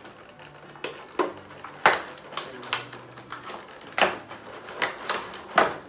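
Clear plastic blister packaging of an action figure crackling and clicking irregularly as the figure's parts are pulled out of the tray, with a few sharper snaps.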